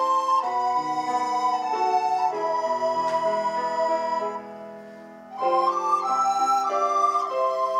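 Recorder ensemble playing sustained chords in several parts. About four seconds in the sound thins and drops away for about a second, then the full ensemble comes back in.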